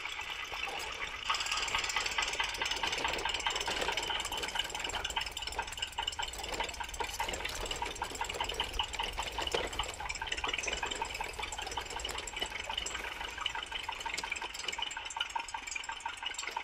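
A steady engine-running sound like a tractor engine, with a fast even chug. The toy tractors are pushed by hand and have no engine, so this is an added sound effect.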